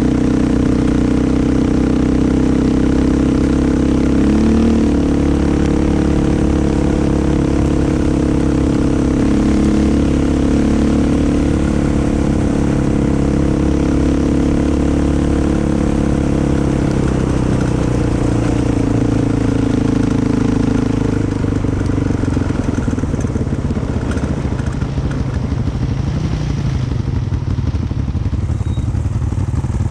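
Motorcycle engine running under way, its pitch wavering up and down with the throttle. The engine note shifts lower and thins about two-thirds of the way through.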